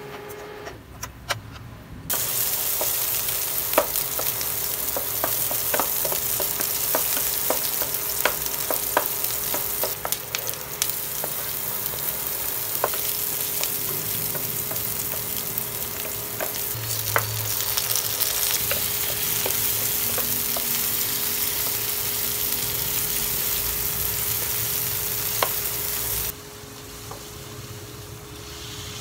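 Chopped garlic sizzling in hot oil in a frying pan, stirred with a wooden spatula that clicks and scrapes against the pan. The sizzle starts suddenly about two seconds in, after a few tong clicks, and drops off sharply near the end.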